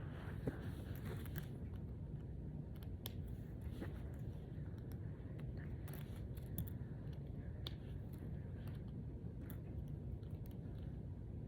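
Brain Flakes plastic discs clicking lightly and irregularly as they are handled and pushed together.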